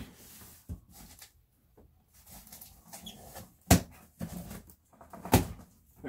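A large cardboard box holding a PC case being turned over and shifted on a wooden table: cardboard scraping and rustling, a light knock near the start, then two sharp thumps, the loudest near the middle and another about a second and a half later.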